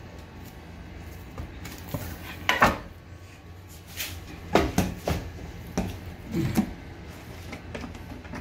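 Kitchenware being handled: a few sudden knocks and scrapes of a metal pot and utensils, clustered in the middle seconds, over a steady low hum.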